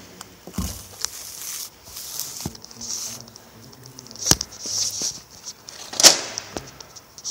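Handling noise: irregular clacks and knocks with short rustles, the loudest about six seconds in.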